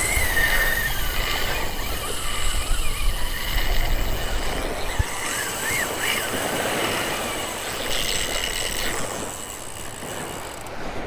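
Large spinning reel's drag screaming as a hooked shark takes line: a steady high whine, with wind and surf wash underneath.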